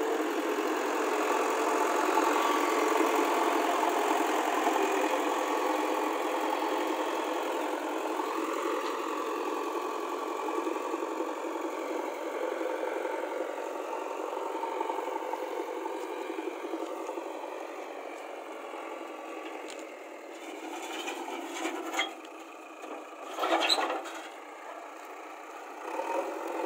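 JCB backhoe loader's diesel engine running, its pitch gently rising and falling, with a few short knocks about three quarters of the way in.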